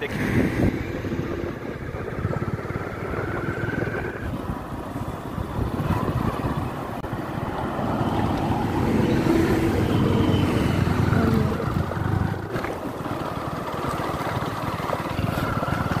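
Motorcycle running at road speed, its engine mixed with rushing wind and road noise; the sound grows louder about halfway through.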